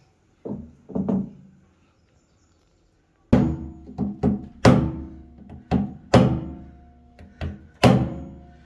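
Two dull thuds, then from about three seconds in a run of heavy, ringing knocks, roughly two a second and unevenly spaced.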